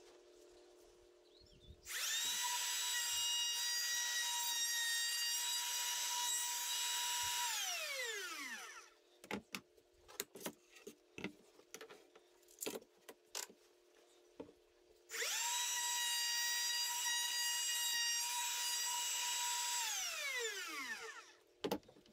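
Cordless Makita trim router motor running at a steady high whine, twice for about five seconds each, each time winding down with a falling pitch after it is switched off. In between come short knocks and clatter of the tool and board being handled.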